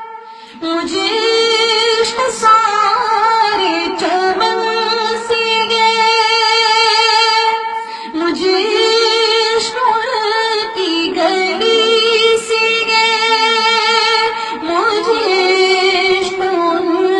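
A young woman singing an Urdu naat solo into a handheld microphone, drawing out long, wavering held notes. Short breaks for breath come just after the start and about eight seconds in.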